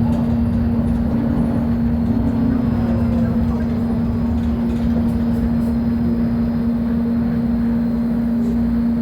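Volvo B10M bus's inline-six diesel engine running at a steady speed: a constant hum over a low rumble, with no revving.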